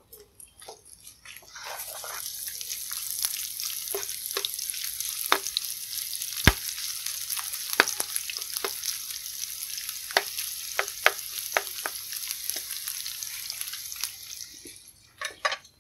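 Hot oil sizzling in a frying pan where ginger strips are frying with pieces of vegetarian mock mackerel, with scattered sharp clicks and pops while the pan is stirred. The sizzle sets in about a second and a half in and fades away near the end.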